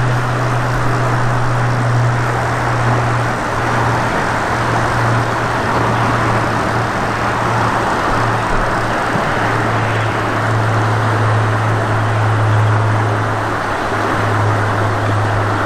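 Steady rushing of fast river water, with a constant low rumble underneath.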